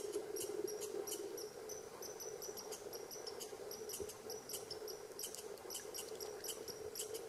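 Insects chirping: many short, high chirps and clicks at an uneven pace, over a low steady hum.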